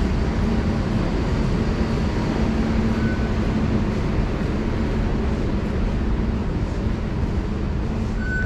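Steady low rumble with a hum: the background noise of an underground MRT station concourse. A brief high beep sounds about three seconds in, and another near the end.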